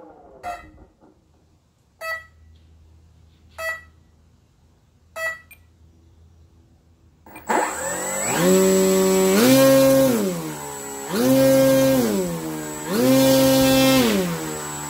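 Four short beeps about every second and a half, then the RV-8's electric brushless motor spins up about halfway in and is throttled between two speeds three times, rising and falling in pitch, with a steady high whine above it.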